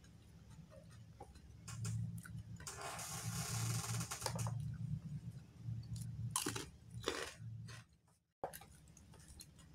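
A person chewing a large mouthful of rice, bean sprouts and raw-tempe sambal eaten by hand, with irregular wet mouth sounds and a few crisp crunches.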